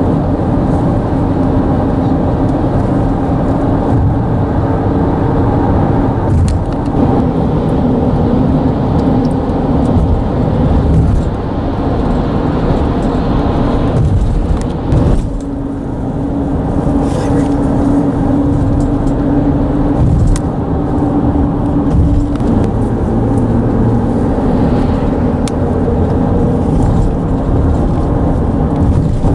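Car tyres rolling over a concrete bridge deck, a steady loud rumble with a droning hum from the textured concrete, and a few brief knocks as the wheels cross joints.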